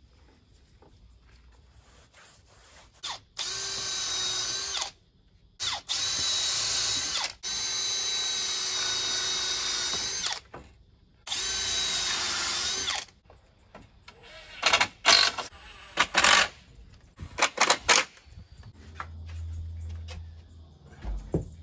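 Cordless drill running into the timber slats of a privacy screen in four long bursts, each whining up to speed and winding down as it stops, followed by several short sharp bursts.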